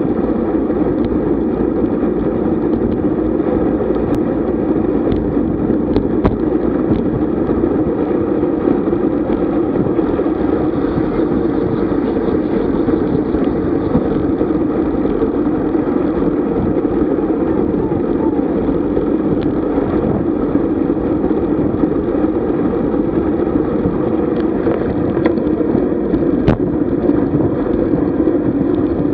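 Steady rush of wind and tyre-on-road noise from a road bike under way, as picked up by a camera riding on the bike, with a few faint clicks.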